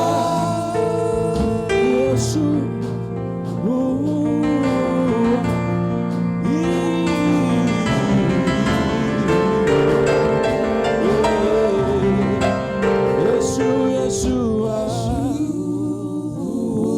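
Gospel worship music: sustained keyboard chords with a voice singing over them.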